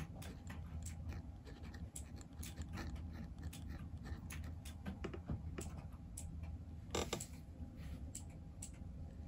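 Zebra G steel dip pen nib scratching across sketchbook paper as letters are written: a run of short, irregular scratchy strokes, one cluster louder about seven seconds in, over a low steady hum.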